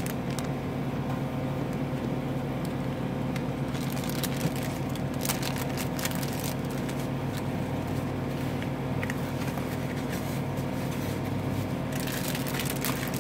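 Paper and cards rustling and sliding as hands sort them, a few times, loudest about four seconds in and again near the end, over a steady low machine hum.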